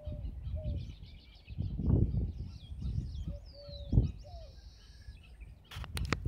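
Many small birds chirping and calling in the trees, with one clear descending whistle about halfway through and a few short low steady call notes. Low thumps on the microphone twice, and a few sharp clicks near the end.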